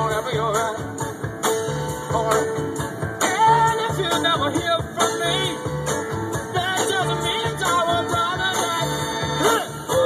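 Music: a song with a singing voice over a steady beat.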